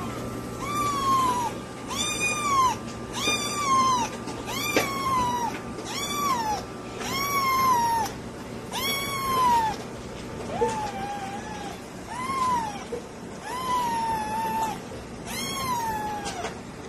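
Kitten meowing over and over, about a dozen short, high-pitched meows, each rising and falling, about one a second.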